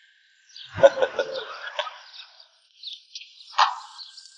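Outdoor ambience of small birds chirping and twittering. About a second in there is a louder sudden sound, and another short one comes past three seconds in.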